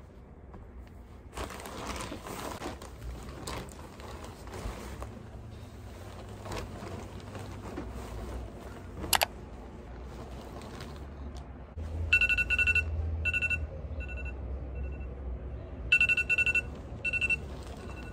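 Rustling, handling noise, then a run of short, high electronic beeps in quick clusters near the end.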